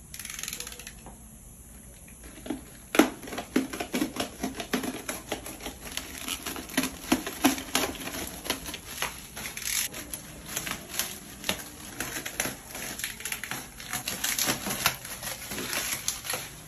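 Plastic bubble wrap crinkling and crackling as it is handled and trimmed with a blade and scissors, with a dense run of sharp clicks starting about three seconds in.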